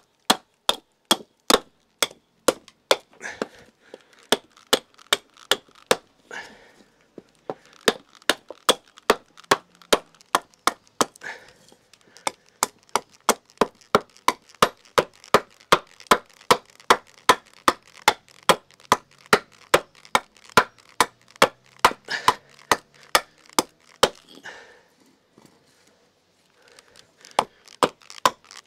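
Axe chopping and shaping a wooden kuksa blank: quick, light, evenly spaced strikes, about three a second, pausing briefly twice.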